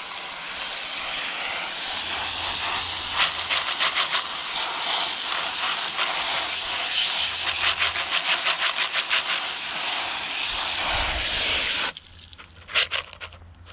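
Garden-hose spray nozzle on its flat setting, hissing steadily as it sprays water over lead air-rifle slugs in a plastic colander to rinse swaging chips off them. Two spells of fast rattling come through the spray, and the spray cuts off suddenly near the end.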